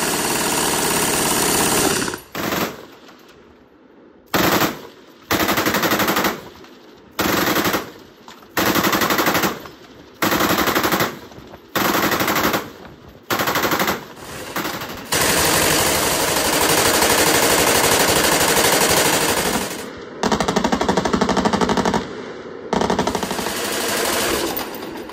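MG-42 machine gun firing at a very fast rate. A burst of about two seconds is followed by about ten short bursts of under a second each. Then come longer bursts of several seconds near the end.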